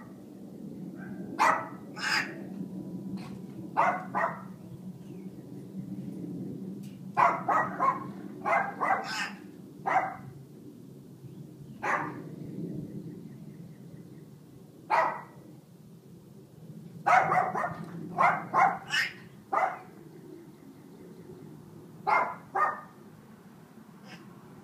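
A dog barking over and over in short runs of one to three barks, with gaps of one to three seconds between runs, over a steady low hum.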